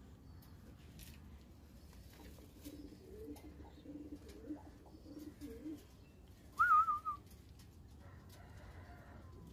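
Pigeons cooing in low, rolling phrases from about three to six seconds in. Near the end comes a brief, louder, high wavering whistle-like call lasting about half a second.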